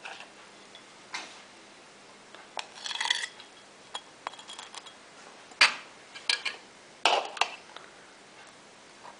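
Metal knife and spoon scraping and knocking against a metal serving tray while a slice of künefe is lifted onto a glass plate: a handful of separate scrapes and sharp clinks with quiet gaps between, the sharpest about halfway through.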